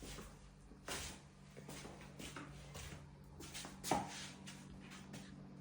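Scattered soft rustles and light knocks, with a sharper knock about four seconds in, over a faint steady hum.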